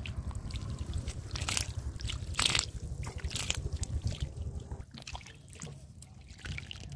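Climbing perch flapping and wriggling through shallow water and mud, making short wet splashes and squelches, the loudest about two and a half seconds in, over a steady low rumble.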